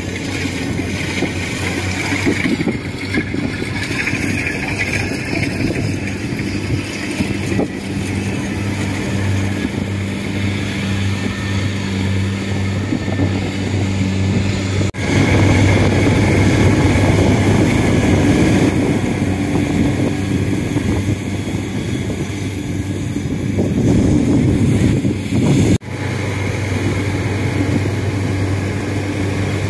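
Kubota rice combine harvester's diesel engine running steadily under load while it cuts and threshes rice, a steady low engine note with mechanical clatter over it.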